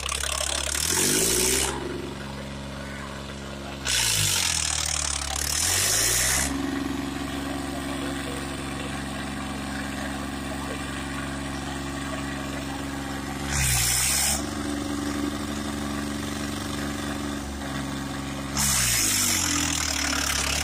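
Farmtrac 60 T20 tractor's diesel engine pulling a harrow under heavy load, revving up and down several times and held at high revs for long stretches. Four loud bursts of hissing noise cut in over it.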